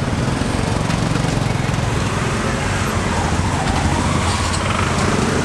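Steady street traffic noise: a continuous low rumble of motor vehicles running and passing.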